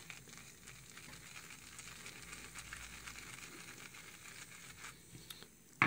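A Semogue 1438 boar-bristle shaving brush scrubbing and swirling on a hard puck of activated-charcoal shaving soap in its tub, loading the brush: a faint, steady, crackly rustle of bristles on soap. A sharp knock comes at the very end.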